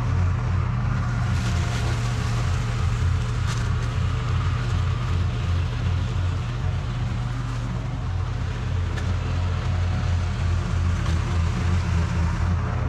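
Toro TimeCutter SS4260 zero-turn mower running steadily while mowing grass, its engine giving a constant low hum.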